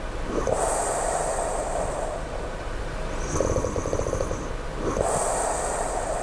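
A sleeping person snoring low, in a slow even rhythm: one rattling snore about three and a half seconds in, between two long breathy breaths near the start and near the end.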